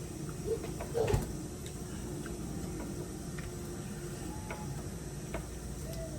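Eating sounds from a seafood boil: scattered small wet clicks and mouth smacks, with a louder crackly cluster about a second in.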